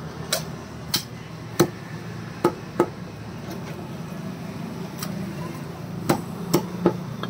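Butcher's cleaver chopping a chicken on a wooden block: about eight sharp chops, a quick run in the first three seconds, then a pause, then three more near the end. A steady low hum runs underneath.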